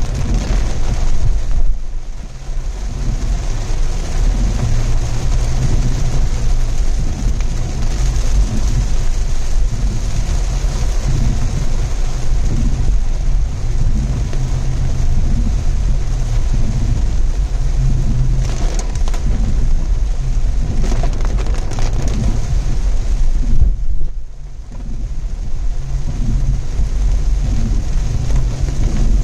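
Loud, steady rumble of a vehicle being driven in the rain: road, wind and rain noise. It briefly dips about two seconds in and again about five seconds before the end.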